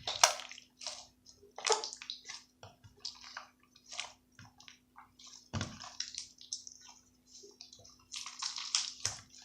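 Homemade slime being squeezed and worked by hand, making a series of short, irregular squishing sounds.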